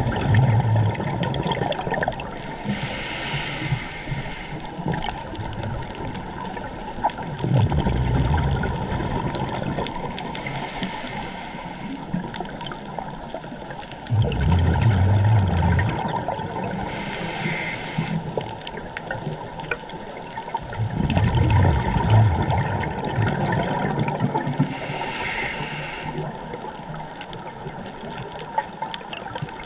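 Scuba diver breathing through a regulator, heard underwater: a hissing inhale, then a low bubbling rush of exhaled air, repeating about every seven seconds.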